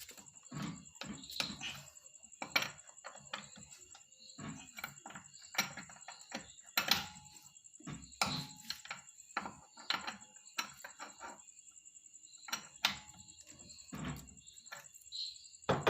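A wheel brace working on a car's wheel nuts as they are tightened: a string of irregular metallic clicks and knocks. A faint steady high whine runs underneath.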